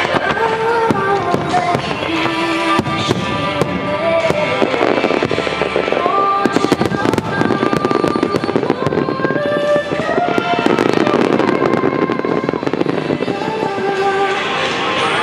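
Fireworks from a wide starmine display bursting in quick succession, with sharp bangs and crackling that grow densest around the middle, over a song playing throughout.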